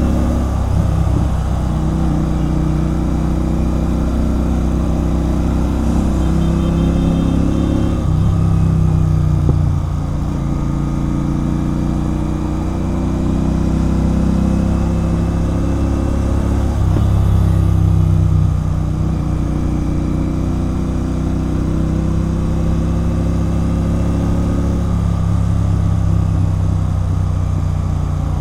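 Royal Enfield Continental GT 650's 648 cc parallel-twin engine running loud through a Red Rooster Performance aftermarket exhaust while riding, its pitch falling and rising again several times as the throttle and revs change.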